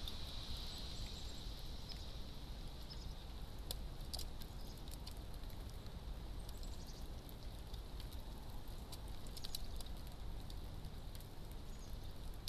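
Light scattered clicks and scratches of a squirrel's claws on a bird feeder close to the microphone, in small clusters a few seconds apart, over a steady low background noise.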